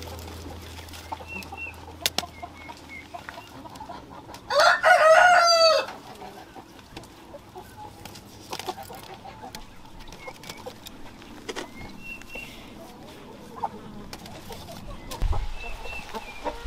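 A rooster crows once, loud and drawn out for about a second and a half, starting about four and a half seconds in. Around it are faint short high chirps and a few soft clicks.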